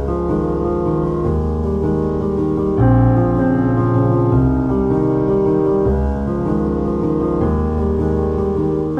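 Background piano music: sustained chords that change every second or two.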